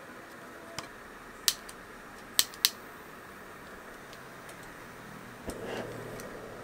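Sharp metal clicks and clinks of a ladle and the folding wire handles against a small camping pot, several in quick succession, then a knock and brief rustle as the pot is handled, over a steady hiss.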